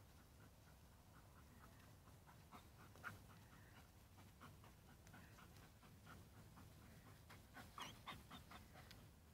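Faint, rapid panting of a dog, about three or four breaths a second, with a few louder short sounds near the end.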